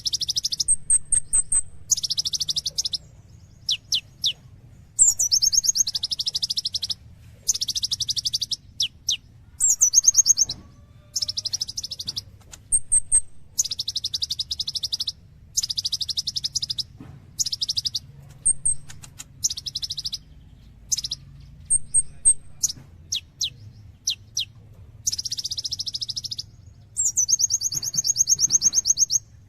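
Kolibri ninja (konin), a sunbird, singing vigorously: repeated high, rapid trilled phrases about a second long, with short high chips and quick downward-sliding notes between them.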